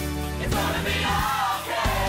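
Gospel choir singing with a band: steady bass and drums under massed voices.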